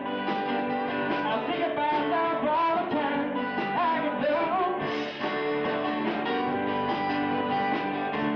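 Live band playing an acoustic rock song, with strummed acoustic guitars and keyboards. A man sings lead through the first half; about halfway through the voice stops and the instruments carry on.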